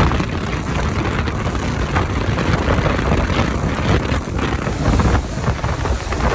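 Motorboat running at speed: a steady rushing drone of engine, hull cutting through water and spray, with wind on the microphone.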